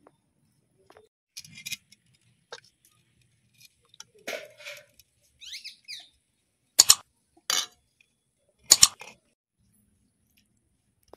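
Sharp mouse-click sound effects from a like-and-subscribe button animation: loud single clicks about two seconds apart in the second half. Before them come a few soft clinks and scrapes of a ladle and plates as the curry is served.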